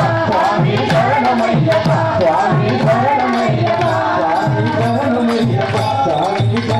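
Live Tamil devotional song to Ayyappan: voices singing over a hand drum whose deep strokes fall in pitch about twice a second, with tambourine and hand-clapping clicks throughout.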